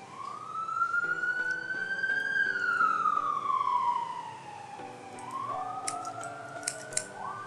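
Siren wailing, one slow rise and fall in pitch over about five seconds, then rising again with a second overlapping wail in the last couple of seconds. A few sharp scissor snips sound near the end.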